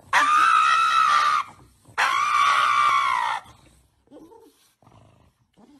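A pug screaming in protest while its nails are clipped: two long, high-pitched cries of about a second and a half each, followed by only faint short sounds.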